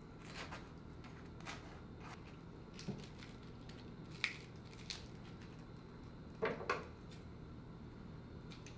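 Spoon scraping sauce over crisp toasted bread, a few short crispy rasps, then a lettuce leaf being handled and snipped with kitchen scissors. The loudest is a close pair of sharp crunches about two-thirds of the way in.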